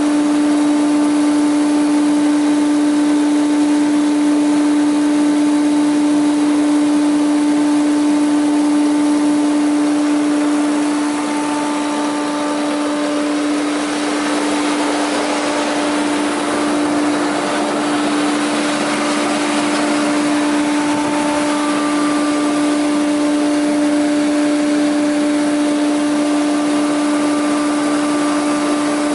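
JAROMA DSMC 60 thickness planer running with no board in it: its motor and cutterhead make a steady whine over a rushing hiss.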